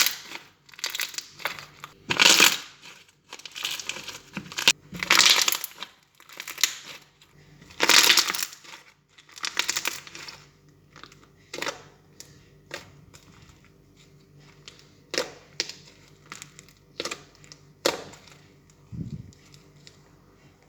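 Hands squeezing and poking slime: irregular squishing, crackling bursts, then sparser short sharp pops and clicks in the second half.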